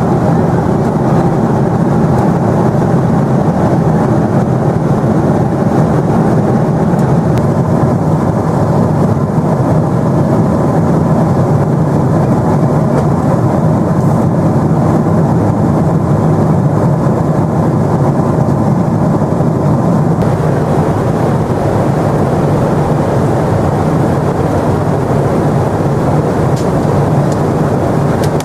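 Boeing 777-300 airliner cabin noise in cruise: a steady, even low roar of the jet engines and airflow heard from inside the cabin.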